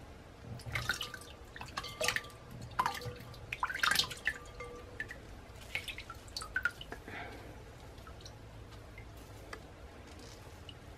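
Water dripping and splashing into a bowl of ice water as a cloth bundle of freshly made butter is dipped and squeezed out over it, rinsing the butter. The drips come thickly for the first several seconds, then taper off.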